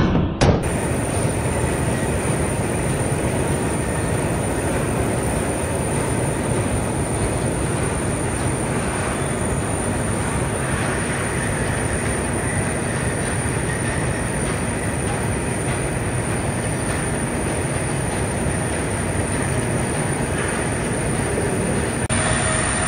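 Loaded belt conveyor carrying crushed limestone, running steadily: an even, continuous rumbling noise of the belt rolling over its steel troughing idlers. At the very start, the last drum hits of an intro music track cut off.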